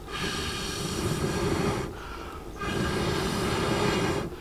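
A man blowing two long breaths through a wooden blowpipe into a wood fire to fan it, each about two seconds, with a short pause for breath between.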